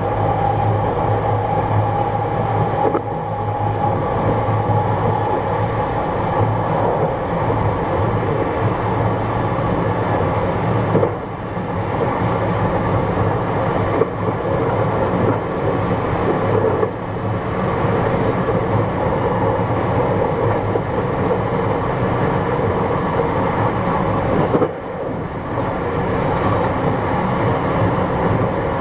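Running sound inside a JR West 321 series electric motor car (KuMoHa 321-10, Toshiba traction equipment) moving along the line: a steady rumble of wheels on rail with a low, even hum. A few short knocks and brief dips come through.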